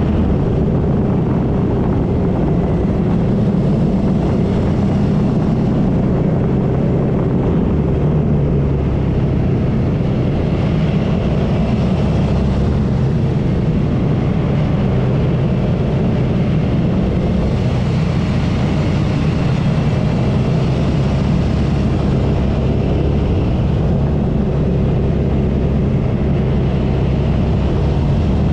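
Suzuki V-Strom 650's V-twin engine running steadily under way, with wind rushing over the bike.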